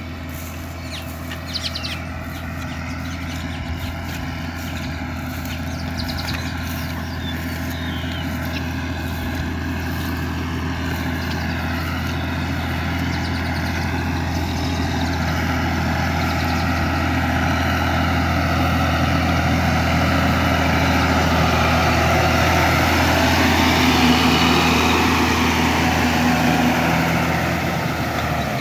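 John Deere 6603 tractor's diesel engine running steadily under load as it pulls a disc plough through a flooded paddy, growing louder as it approaches.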